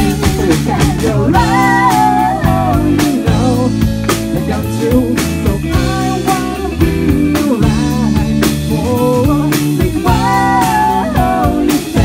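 Rock band playing live, amplified: drum kit keeping a steady beat under electric guitar and bass guitar, with a man singing.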